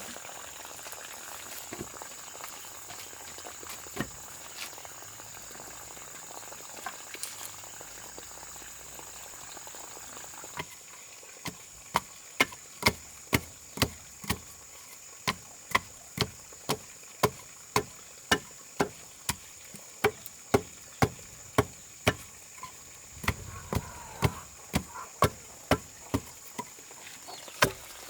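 Repeated sharp strikes, about two a second, like a hand tool hitting steadily. They start about ten seconds in, over a steady high hiss.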